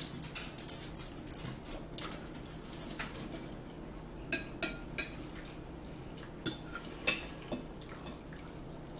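Forks clinking and scraping against dinner plates as two people eat, in scattered short clicks at irregular intervals.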